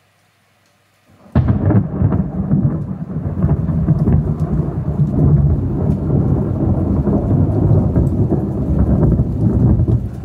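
A thunderclap breaks suddenly about a second in and rolls on as a long, deep rumble of thunder, easing off near the end.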